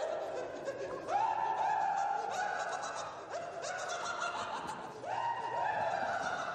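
A man's high-pitched singing voice in a run of short phrases, each note swooping up and then held for about a second.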